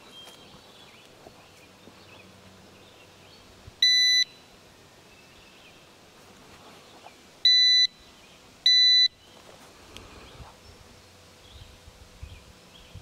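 Handheld metal detector beeping three times, each a short, steady high-pitched tone of about half a second, as it is used to search a walnut cant for embedded metal.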